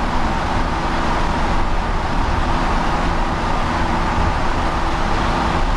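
Steady running rumble of a Mexico City Metro train, heard from inside the passenger car, with a steady motor hum over the rolling noise.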